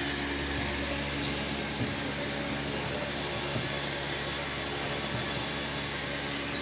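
Heat shrink tunnel's blower fan running steadily, a constant blowing with a low hum, as the machine runs hot with its mesh conveyor moving.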